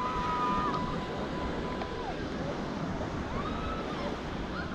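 Waves breaking on the shore, with wind on the microphone, as a steady wash of noise. A faint steady high tone holds for about the first two seconds, and a brief rising-and-falling tone comes about midway.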